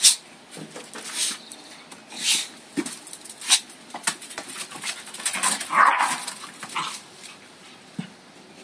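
Lakeland terrier whimpering and yipping, with one pitched cry about six seconds in. Short scuffing noises come throughout, the loudest right at the start.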